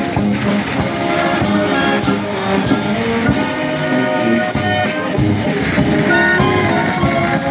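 Marching band of trumpets, tubas, saxophones and clarinets playing a tune together, with regular beats under the held brass notes.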